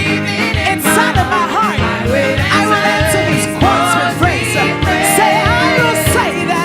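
Live gospel praise music: a band plays with a steady drum beat under a wavering lead vocal line.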